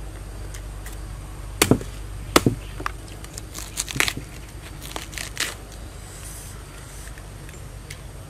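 Knife cutting and prying into a raw palm heart, giving sharp crunching cracks as the fibrous layers split, loudest in two quick pairs early on, then a few smaller ones.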